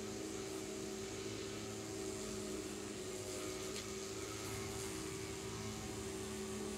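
Steady mechanical hum of a running motor, holding several constant pitches without change.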